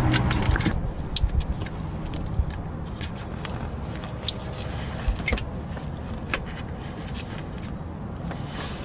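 Scattered metallic clicks and light scraping of tools and parts being worked on in a car's engine bay while the alternator's wiring connectors are fitted, over a steady low rumble.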